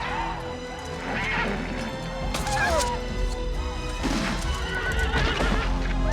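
Horses whinnying several times over the film's orchestral score, which holds sustained notes with a low rumble beneath.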